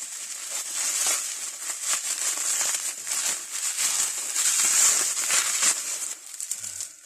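Packaging being unwrapped by hand: a steady run of crinkling and rustling with many small crackles.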